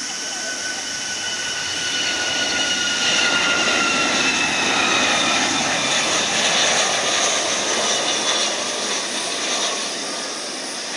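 Rolls-Royce RB211 turbofans of a Boeing 757 freighter on landing approach passing by: a loud, husky high-pitched whine that slides down in pitch over a hissing "shaa" rush, with little metallic edge. The sound swells through the middle and eases near the end.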